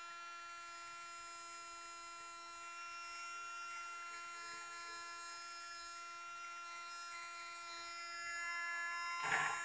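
Quick 850A SMD rework station's air pump running with a steady hum, air hissing out of the hot-air handpiece. A short knock near the end.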